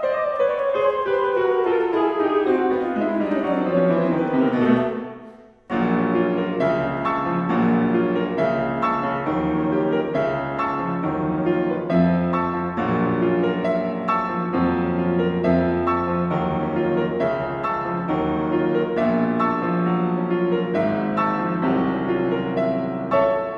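Alto saxophone and Steinway grand piano in a long descending line that dies away about five seconds in; after a brief break the piano carries on alone with a fast, rhythmic passage of short repeated chords.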